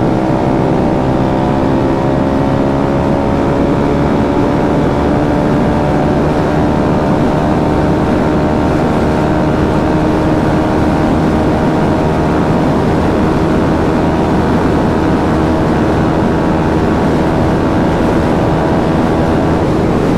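KTM Duke 200's single-cylinder engine running steadily under way, its pitch rising slowly as the bike gradually gains speed, with road and wind noise underneath.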